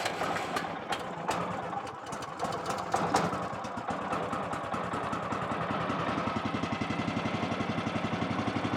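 Woodland Mills HM130MAX sawmill's small gasoline engine idling to warm up just after starting. There are some irregular knocks in the first few seconds, and then the exhaust settles into an even, rapid firing beat.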